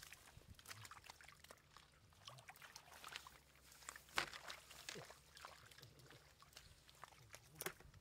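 Faint wet clicks and small splashes in shallow muddy water, with a sharper splash about four seconds in and another near the end.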